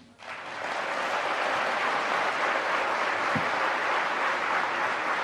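Audience applauding. The clapping starts just after a brief gap, swells within the first second, then holds steady.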